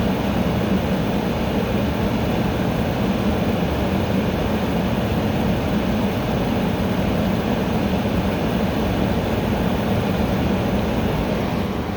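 Air conditioner running steadily: a continuous rush of air with a low hum under it.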